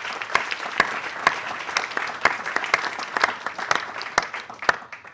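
Audience applauding: many hands clapping together, tapering off and stopping near the end.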